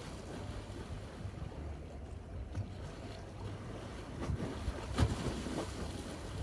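Wind rumbling on the microphone, with one sharp knock about five seconds in.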